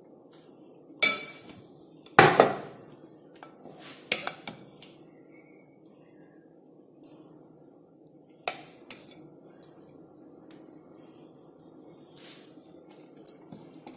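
Metal spoon clinking and tapping against the frying pan and batter bowl while spoonfuls of pancake batter are dropped into the pan: a few sharp, ringing clinks in the first five seconds, the loudest about two seconds in, then fewer and fainter taps.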